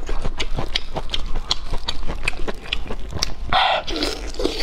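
Close-miked chewing and biting of braised intestines: a quick run of wet smacking mouth clicks, with one longer, louder wet noise about three and a half seconds in.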